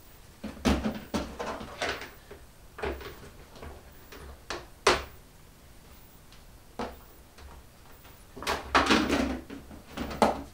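A snake enclosure drawer or tub being pulled open and handled while a hatchling reticulated python is taken out. It makes a string of knocks, scrapes and clacks, the sharpest about five seconds in, with a busier stretch near the end.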